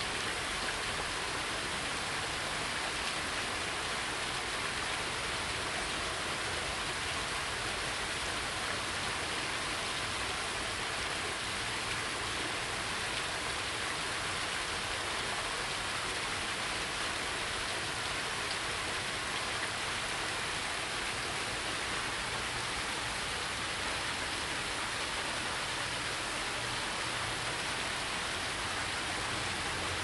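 Water leaking through and spilling over the wooden top gates of a canal lock, splashing steadily into the lock chamber below.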